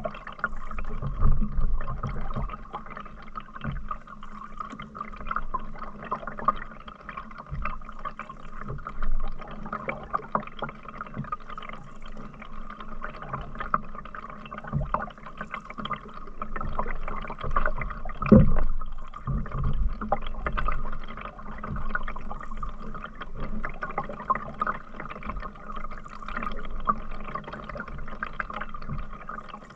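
Canoe paddle working through river water, with trickling and gurgling as water runs off the blade, and a few low knocks, the loudest about eighteen seconds in.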